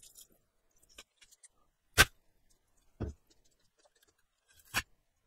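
Handling noises on a tabletop. A sharp click comes about two seconds in, a duller thump a second later, and another sharp click near the end, with a few faint ticks between them.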